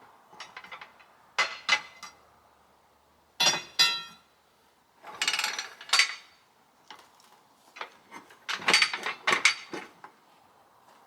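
Hand tools knocking and clinking on the rusted carriage bolts and nuts of an old sawmill carriage as they are worked loose. Sharp metal knocks come in bunches, one of them ringing, with quiet gaps between.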